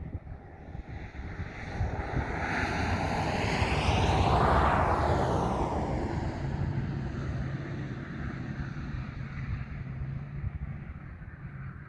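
A vehicle passing by: its noise swells for a few seconds, peaks about four seconds in, then slowly fades away. A low steady hum stays on behind it in the second half.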